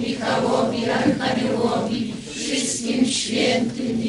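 Congregation singing a hymn together, several voices chanting in unison on held notes.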